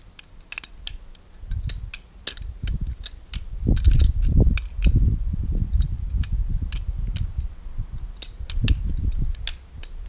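Balisong trainer being flipped: irregular sharp metallic clicks of the handles swinging on the pivot and knocking together, over low rumbling handling noise.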